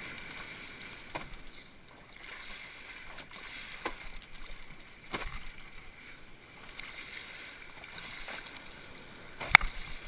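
Seawater washing and lapping against a stand-up paddleboard, with a few sharp knocks; the loudest comes near the end.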